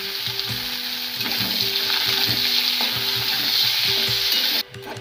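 Sliced onions sizzling as they fry in hot oil in a metal kadai, with a spatula stirring and scraping them around the pan. The sizzle cuts off abruptly near the end.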